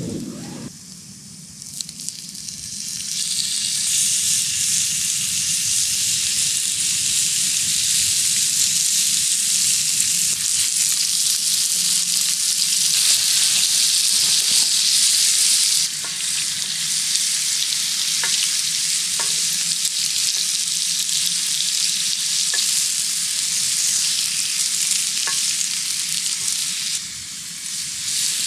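Bacon sizzling on a griddle, a steady frying hiss that grows louder about three seconds in, with a few faint pops.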